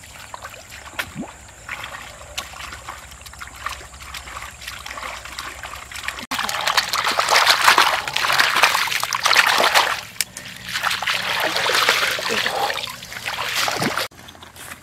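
Water splashing and sloshing in a wicker basket as live eels and fish thrash inside it, loud from about six seconds in and cutting off suddenly near the end. Before that, quieter splashes and clicks of bare feet wading through shallow stream water over gravel.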